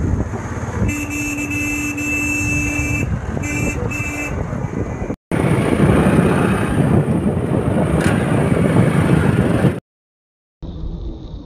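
A vehicle horn sounds one long blast of about two seconds, then two quick toots, over the rumble of a moving motorbike and wind on the microphone. Later comes a stretch of louder engine and wind rumble from riding.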